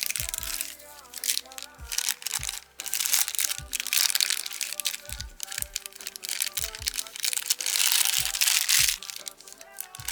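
Packaging crinkling and rustling as a figure box is unwrapped, in dense noisy stretches about three to five seconds in and again near the end, over background music with a steady beat.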